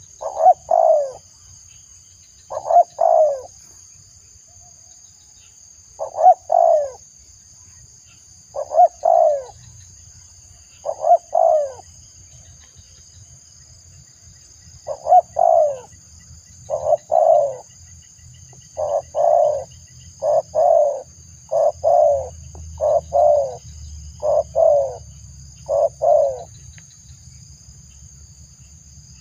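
Spotted dove (tekukur) cooing: a repeated phrase of two or three short coo notes. The phrases come a few seconds apart at first, then quicker and more regular in the second half, and stop shortly before the end.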